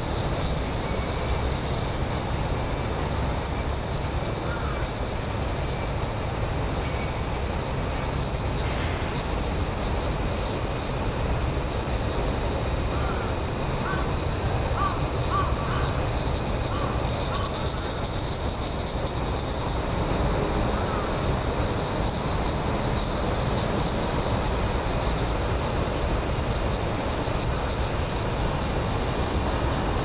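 Chorus of large brown cicadas (aburazemi) buzzing in one loud, steady, high-pitched drone that never lets up.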